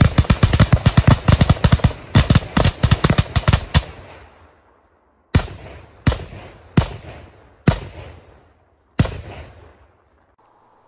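Ground-fired fireworks going off in a rapid barrage of bangs for about four seconds. Then come five separate loud bangs, under a second to just over a second apart, each with an echoing tail.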